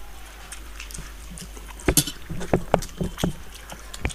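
Several people eating rice and fish curry with their hands: wet chewing and lip-smacking with scattered clicks, the sharpest one about two seconds in.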